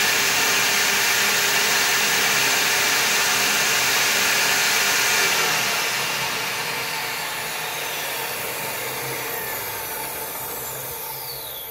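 Table saw running with its blade tilted for a bevel rip through balsa, a loud steady noise. About halfway through it is switched off, and the blade winds down with a falling whine that fades almost to a stop by the end.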